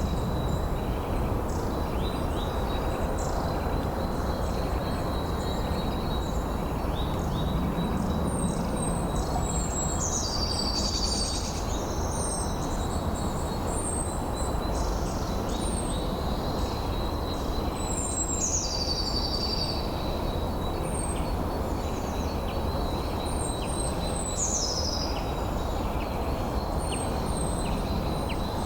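Steady wind rushing, with songbirds calling over it. A short song phrase that falls from high to lower pitch repeats about every six to eight seconds, with brief high chirps in between.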